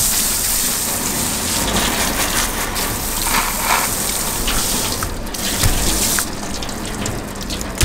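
Garden hose spray nozzle hissing as it sprays water over a freshly scaled fish and a wooden cutting board, rinsing off the loose scales. The spray runs steadily and gets a little softer about six seconds in.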